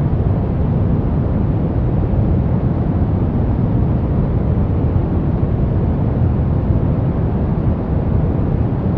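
Steady brown noise: an even, deep rumbling hiss, heaviest in the low end and rolling off toward the highs, with no change.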